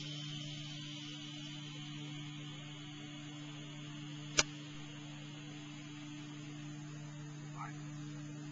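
A golf club strikes a ball once, about four and a half seconds in: a single sharp click over a steady low hum.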